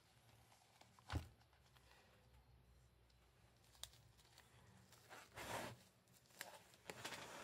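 A men's long zip wallet set down on a table with a single sharp knock about a second in, followed by a faint click and a few soft rustling swells near the end.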